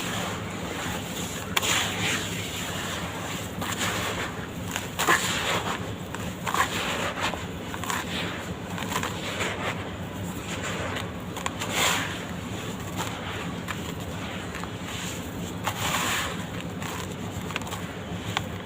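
Red dirt being crumbled: irregular crisp crackles and crunches, with a few louder ones, over a faint steady low hum.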